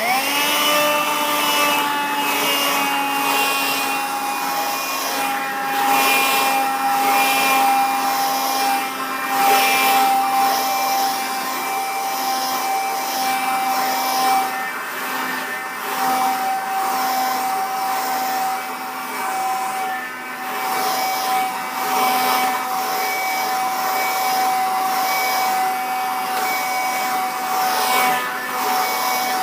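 Handheld vacuum cleaner switching on and running steadily with a high motor whine, its suction hiss swelling and fading as it is passed back and forth over carpet.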